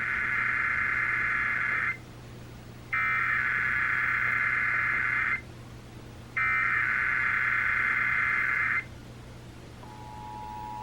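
Emergency Alert System SAME header data tones over broadcast radio: three loud bursts of about two and a half seconds each, a second apart. Near the end the steady two-tone EAS attention signal begins.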